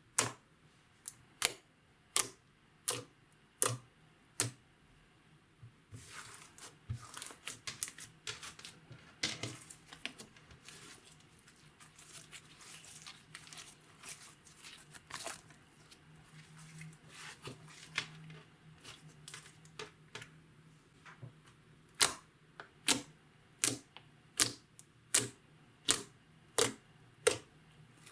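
Slime being pressed and poked by hand, giving sharp sticky clicks at a steady pace of a little over one a second. In the middle stretch the clicks give way to quicker, denser crackling pops and squishes as the slime is worked, then the steady clicks return near the end.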